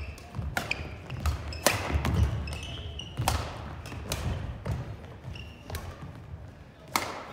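Badminton rallying in a gym: sharp racket hits on the shuttlecock about once a second, with sneakers squeaking and feet thudding on the hardwood court between them.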